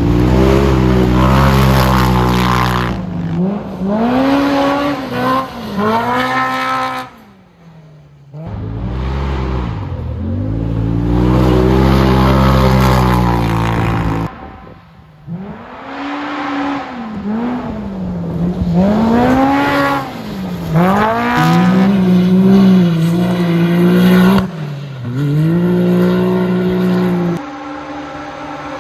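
Side-by-side UTV race buggies' engines revving hard as they pass on a dirt track, the pitch rising and falling over and over as the drivers get on and off the throttle. There are several separate passes, with brief quieter gaps between them.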